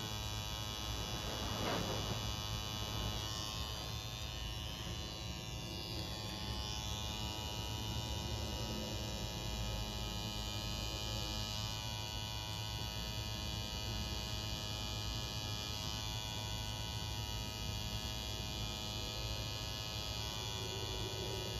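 Tattoo machine buzzing steadily as red ink is tattooed into the skin of the hip.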